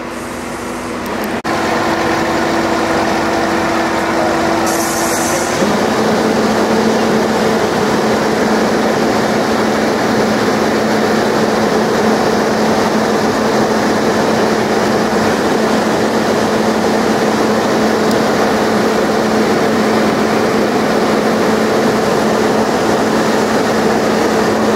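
Fire apparatus diesel engine running steadily at high revs, a loud continuous drone. Its pitch shifts about five and a half seconds in.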